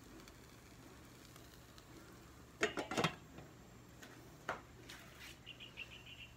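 Glass pot lid set down on a pot: a short clatter of several knocks about two and a half seconds in, then a single knock a moment later and a faint rapid ticking near the end.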